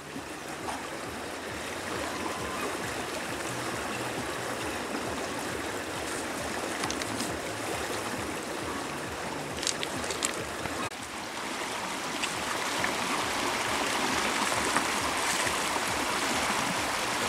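Shallow river rushing over rocks, a steady noisy flow that grows louder about eleven seconds in.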